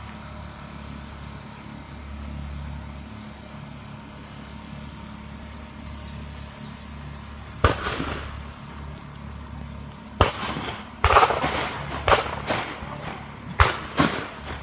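Sharp bangs: one about eight seconds in, then several more in quick succession near the end, over a steady low hum.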